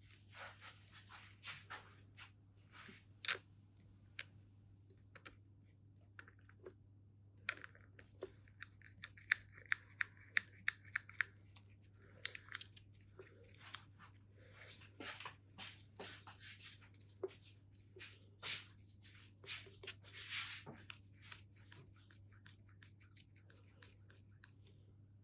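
Small metal motorcycle starter clutch parts being handled, giving scattered light clicks and taps. The loudest comes about three seconds in, and there is a busier run of quick clicks with light scraping around ten seconds.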